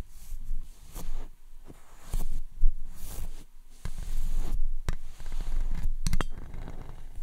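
A brush rubbed and swept over a microphone close up: irregular scratchy swishes and sharp crackling clicks over a low muffled rumble, with a cluster of clicks about six seconds in.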